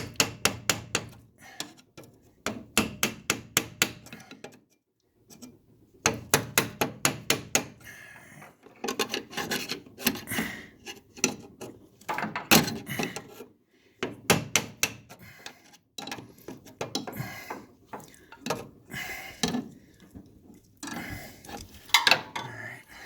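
Runs of quick, evenly spaced metal knocks and clicks, several a second, with rubbing and scraping between them, as a part is worked and tapped onto a G-body steering shaft that will not seat all the way.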